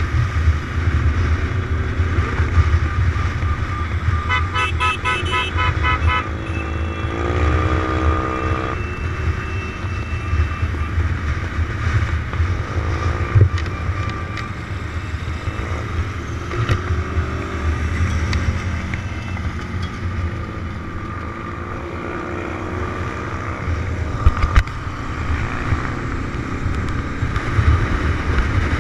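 Motorcycle riding at road speed, a steady engine and wind rumble. About four seconds in, a horn toots in rapid pulses for a couple of seconds. Just after that, an engine revs up, rising in pitch.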